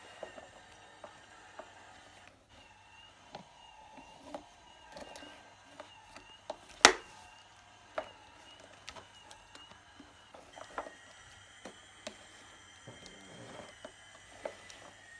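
Scattered light clicks and knocks of a toy car being batted about by a kitten, with one sharp, much louder knock about seven seconds in. A faint steady high whine runs underneath.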